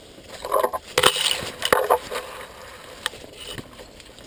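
Rustling and crackling of brush and twigs with a few sharp snaps, mostly in a burst about a second in, as someone shifts position in undergrowth.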